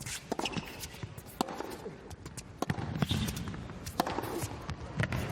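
Tennis ball impacts: sharp, irregular knocks roughly once a second, of the ball being struck and bouncing on the court.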